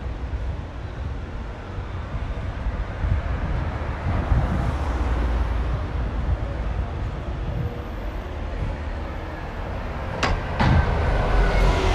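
Double-decker bus approaching and passing close by, its engine and tyre noise building to the loudest point near the end, with faint tones that fall slightly in pitch as it goes past. Wind rumbles on the microphone, and two sharp clicks come about ten seconds in.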